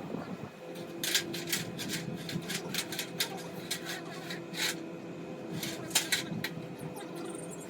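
A steady low hum with about a dozen sharp, irregular clicks and snaps over it.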